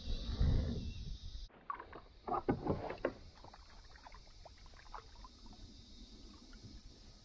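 Water splashing beside a kayak as a hooked Australian bass is played to the side, loudest in a cluster of splashes two to three seconds in, with smaller splashes after. Before that, a low rumble that cuts off abruptly.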